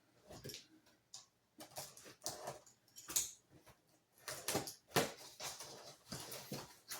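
Shipping box and packaging being opened and handled, giving irregular scrapes, rustles and knocks.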